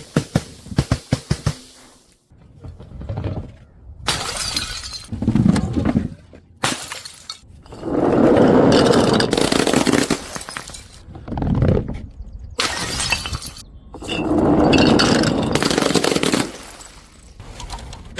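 Glass bottles breaking one after another: a quick run of sharp clinks at the start, then several loud shattering crashes with broken glass scattering.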